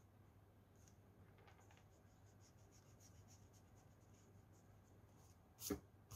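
Faint scratching of drawing strokes on paper, many short strokes in a row, over a low steady hum. A sharp knock sounds near the end.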